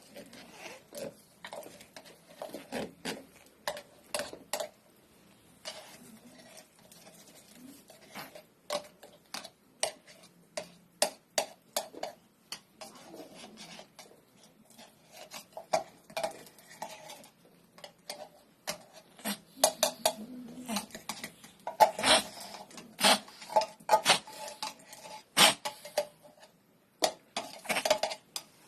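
Food bowls and spoons clinking as cat food is dished out: many sharp, irregular clinks, thickest in the second half.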